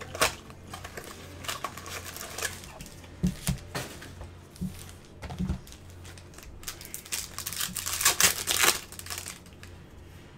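Trading-card box and foil packs handled with gloved hands: scattered clicks, taps and crinkling, with a louder run of crinkling about eight seconds in, over a steady low hum.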